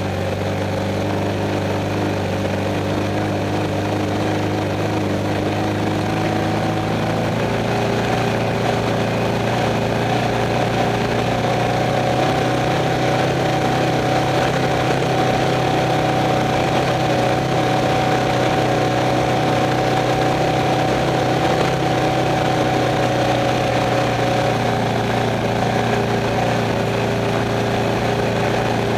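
Off-road race car's engine running at a near-steady pitch, heard from inside the car over a constant rush of wind and rattle, with a slight change in pitch about seven seconds in.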